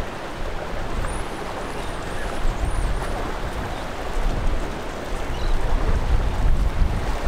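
Wind buffeting the microphone in gusts over a steady wash of ocean water and surf, with a few faint high chirps between one and three seconds in.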